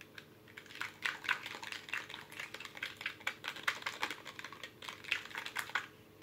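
A small plastic spoon stirring and scooping slime in a small plastic container: quick, irregular sticky clicks and taps, starting about half a second in and stopping just before the end.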